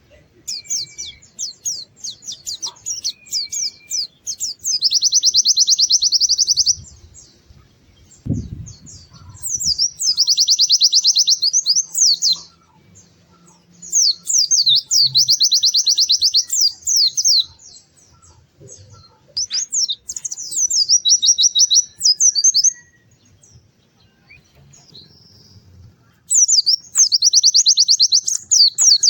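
White-eye (pleci) singing in repeated bouts of a few seconds each: a run of quick high sharp notes that speeds into a dense, rapid high trill, about five bouts with short pauses between them.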